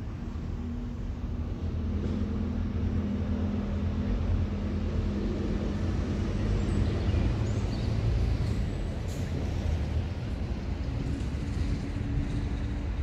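Steady low rumble of motor traffic, with an engine hum holding a steady pitch.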